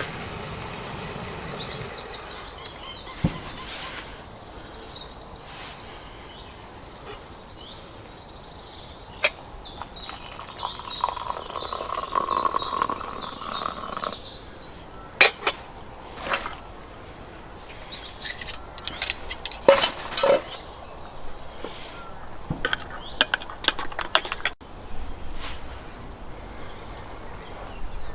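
Woodland birds singing, many chirps and trills, with scattered sharp clicks and knocks, loudest about fifteen and twenty seconds in.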